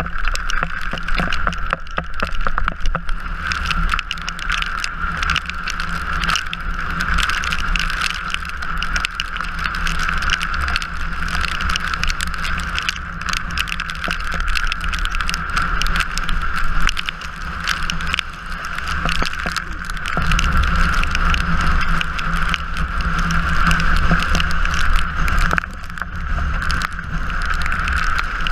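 Drift trike rolling fast along a wet road: a steady rushing of wheels on wet tarmac and wind, with frequent small rattles and knocks.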